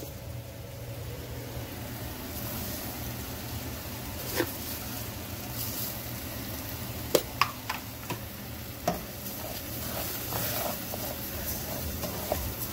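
Dry rice sizzling as it toasts in hot oil in a skillet while it is stirred, with several sharp clicks of the utensil against the pan between about four and nine seconds in. This is the toasting stage of Mexican rice, browning the grains before the liquid goes in.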